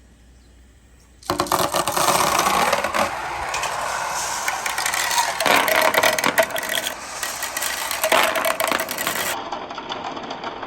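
Many marbles rolling and clattering down wooden ramps. The dense rattle of clicks starts suddenly about a second in and keeps going.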